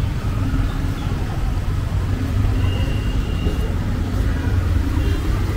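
City street traffic noise: a steady low rumble of vehicles, with a faint high tone for about a second near the middle.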